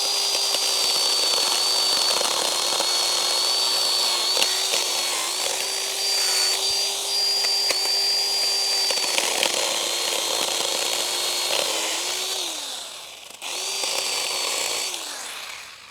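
Ryobi battery-powered chainsaw running and cutting oak limbs, its electric motor giving a steady high whine over the chain's rasp through the wood. About twelve seconds in the motor winds down, starts again a moment later and winds down once more near the end.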